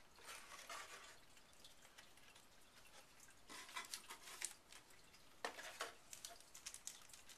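Faint rustling and small clicks of packaging being handled as accessories are taken out of the box, in three short clusters.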